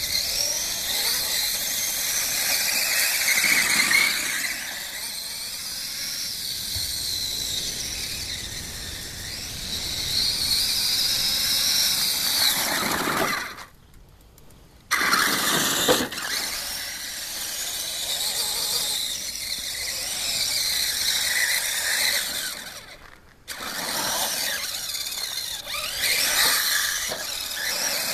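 Traxxas E-Maxx electric RC monster truck's motors whining high, the pitch rising and falling as it is throttled up and down. The sound drops out briefly twice, about halfway through and again later.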